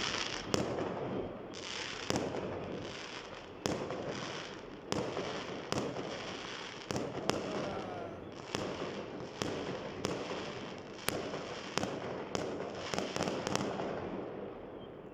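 Fireworks going off: sharp bangs about one or two a second over a continuous background of further fireworks.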